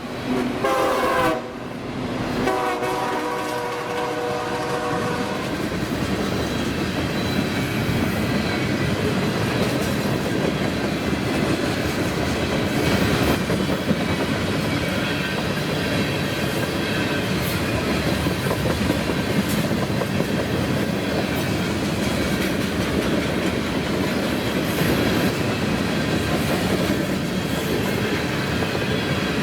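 Diesel freight locomotive's horn sounding a short blast and then a longer, fainter one, followed by the train rolling past with a steady rumble and wheels clattering over rail joints.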